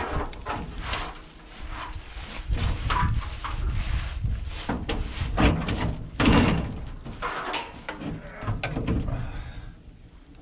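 Rusty sheet-steel side hood panel of a 1957 Autocar truck being unlatched and forced open by hand: irregular metal clanks and scrapes, with the stiff hinges creaking. The noises die down shortly before the end.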